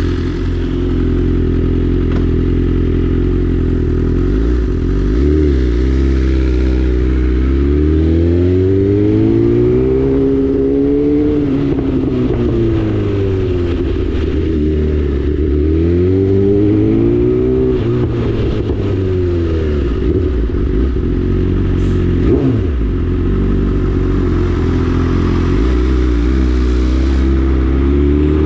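BMW S1000RR inline-four engine through an Akrapovic full exhaust, running loud: it starts out steady, then is brought up and down in revs several times in long smooth swells, with one quick sharp blip a little past the middle, before it settles back to a steady low note near the end.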